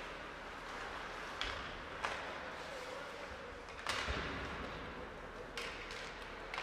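Ice hockey play in a rink: several sharp knocks from sticks, puck and boards over steady arena background noise, with a louder bang that echoes about four seconds in.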